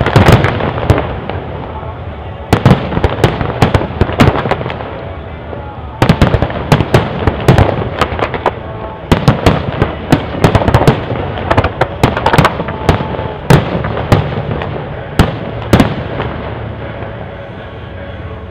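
Aerial firework shells bursting in quick volleys of sharp bangs. The volleys come in clusters every two or three seconds, and the bangs die away over the last couple of seconds.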